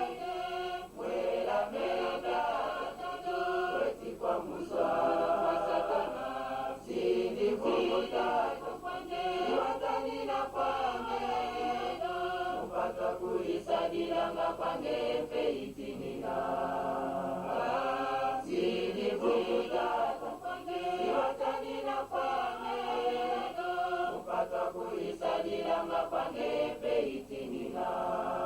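A choir of many voices singing in phrases.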